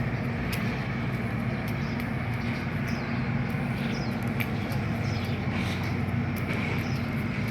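Steady low rumble of vehicle engines, even and unbroken throughout.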